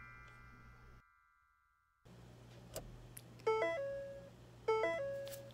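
The ringing of a chime fades out, there is a second of silence, then a short rising two-note electronic chime sounds twice, about a second apart.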